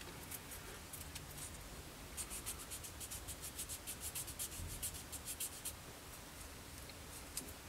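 Small abrasive tool rubbing quickly back and forth over a plastic model part, cleaning off raised ejector pin marks. A few scattered strokes, then from about two seconds in a fast run of short scratchy strokes, about six a second, for some three and a half seconds.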